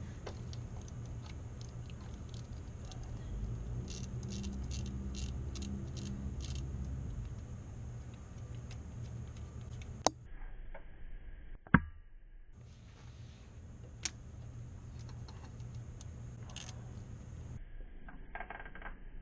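Light metallic clicks and clinks of a hand wrench and socket working the terminal nuts on a car's starter solenoid. A run of about eight light clicks comes a few seconds in, and two sharp metal knocks come near the middle, over a low steady hum.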